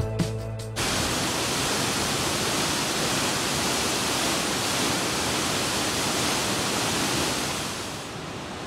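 Music cuts off within the first second. A waterfall then pours into a narrow shale gorge with a loud, steady rush of falling water. Near the end the rush becomes quieter.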